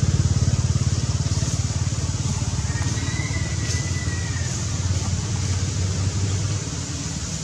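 A motor engine running steadily with a low, fast, even pulsing, slowly getting quieter. A faint thin high tone sounds for about a second and a half near the middle.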